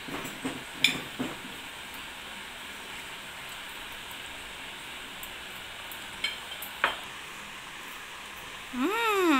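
Metal spoon and fork clinking and scraping against a ceramic plate as a toddler eats, a few sharp clicks over a steady hiss. Near the end a voice calls out loudly in one drawn-out tone that rises and then falls.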